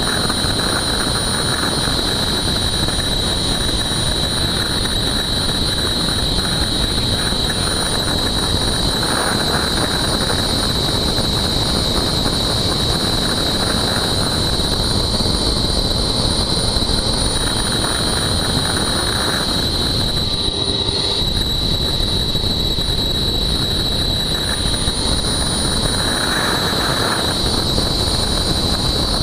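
Helicopter running on the ground with its main rotor turning: a steady, loud rushing noise with a constant high-pitched whine over it.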